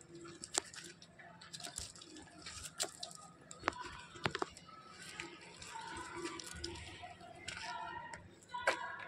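Faint, indistinct voices in the background, with a few sharp clicks or taps scattered through.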